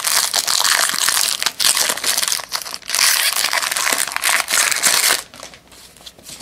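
Foil wrapper of a trading-card pack crinkling and tearing loudly as it is pulled open by hand, stopping about five seconds in. It is followed by quieter handling as the stack of cards is drawn out.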